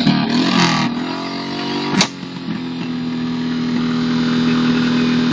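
A vehicle engine running. Its pitch settles about a second in and then holds steady, with one sharp click about two seconds in.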